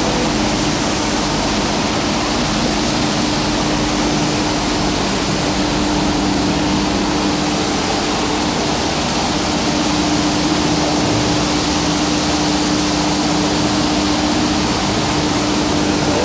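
MAXIS automatic carpet washing machine running: its row of rotating disc brushes scrubbing wet, foamy rugs under water feed, a steady motor hum over a constant rush of water and scrubbing noise.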